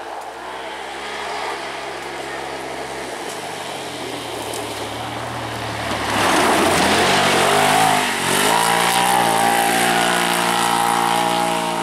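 Side-by-side UTV racing buggy's engine running hard at high, steady revs, louder from about six seconds in as it comes close. The pitch drops and climbs again around seven to eight seconds in, with a steady hiss above the engine.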